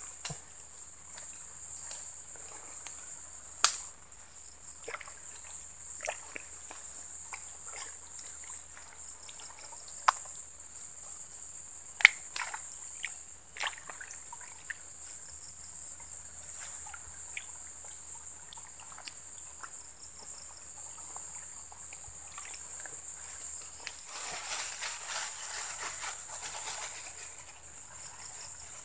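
A steady, high-pitched insect chorus, with scattered sharp clicks and rustles from a hand working in a muddy hole among the grass.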